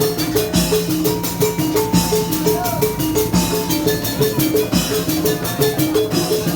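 Obrog street-ensemble music from Indramayu: a short high note repeats about three times a second over a held low tone, with steady drum and percussion strokes.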